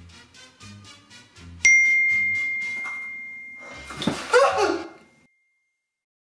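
Background music with a steady beat, then a single bright phone message-alert ding about a second and a half in that rings on and fades slowly. About two seconds later comes a short, strained vocal outburst.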